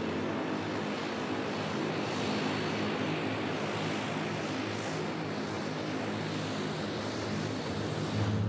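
Propeller airplane engines running steadily: an even rush of engine and prop noise with a low steady hum beneath it.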